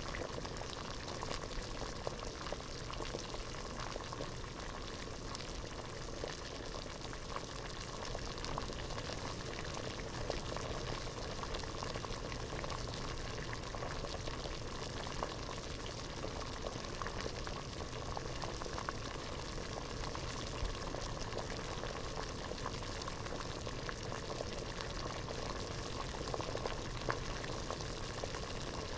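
Water at a full rolling boil in a pot, bubbling steadily with a dense crackle of small bursting bubbles.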